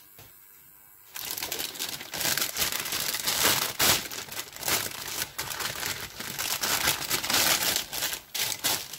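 Clear plastic bag crinkling and rustling as model-kit plastic runners are handled and pulled out of it. It starts about a second in and goes on continuously.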